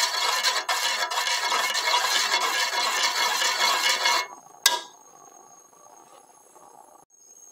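Metal spoon stirring milk, cornstarch and margarine in a metal saucepan, scraping steadily over the pan bottom with small clinks, for the white sauce of a baked pasta dish before it thickens. The stirring stops suddenly about four seconds in, and a single clink of the spoon follows.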